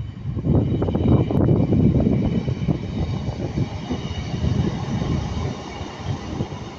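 Two-car Class 150 diesel multiple unit passing at close range: a loud diesel-and-wheel rumble with rapid knocks, loudest a second or two in and easing off towards the end.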